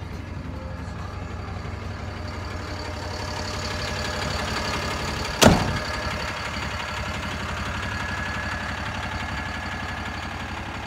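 DAF LF 55.250 truck's six-cylinder diesel idling steadily, with one sharp bang about halfway through, the slam of the cab door.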